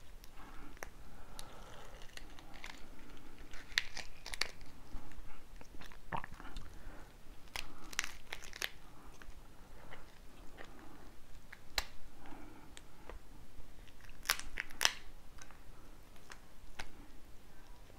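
Cooked lobster tail shell being cracked and pulled apart by hand: scattered sharp cracks and crunches of the shell, some coming in quick pairs.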